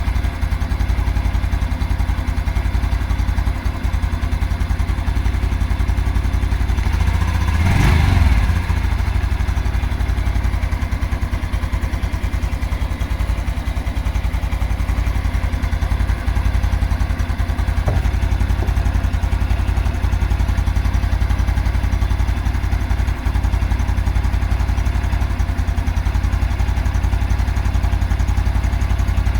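A 2022 Honda Super Cub's single-cylinder engine idling with a steady knock, which the owner places in the clutch plate area. About eight seconds in, the engine is revved briefly and falls back to idle.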